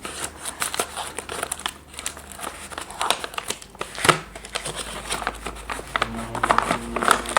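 Plastic packaging crinkling and rustling as a boxed set of markers is handled and opened, with scattered clicks and one sharper tap about four seconds in.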